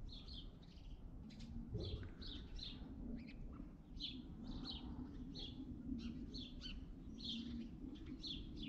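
Small birds chirping faintly, short high calls repeating about two or three times a second, over a low steady background hum.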